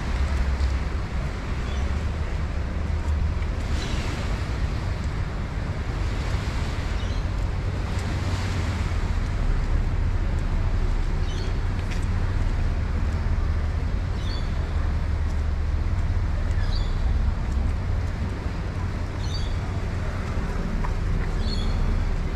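Wind rumbling steadily on a GoPro Hero 9's microphone over an even hiss of rain. A few faint, short high chirps come in the second half.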